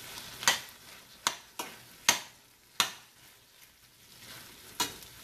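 Utensil stirring mutton liver fry in an open pan: about six sharp scrapes and knocks against the pan at uneven intervals, over a faint sizzle as the liquid cooks off.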